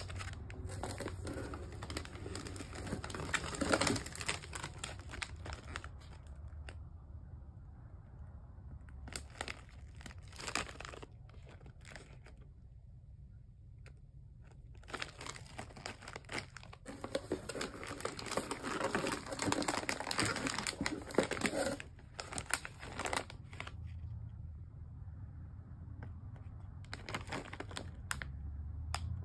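Plastic and foil snack bags crinkling as they are handled and turned over, in four stretches of rustling separated by short pauses.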